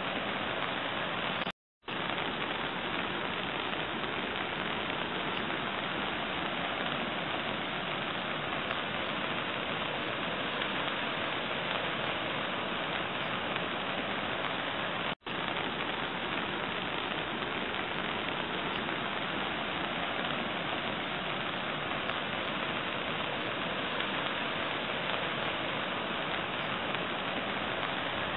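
Steady hiss of rain. It cuts out for a moment twice, near the start and about halfway through.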